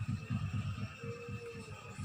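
Low, rhythmic throbbing from a cat, about seven pulses a second, with a faint short tone about a second in.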